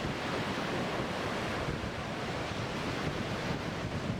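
Rough sea surf breaking on a beach, with strong wind buffeting the microphone, a steady, even rush of noise.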